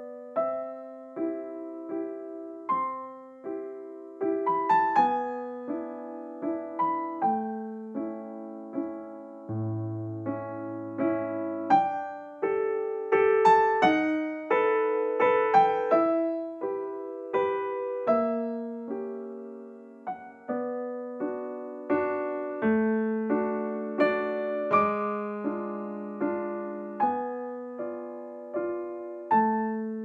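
Background piano music: a slow melody of struck notes that ring and fade over lower notes.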